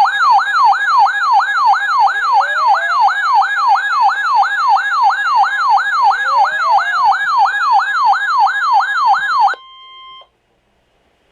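Electronic siren-style alert tone announcing an Emergency Alert System warning: a fast, repeating pitch sweep, about three sweeps a second, then a short steady beep before it cuts off near the end.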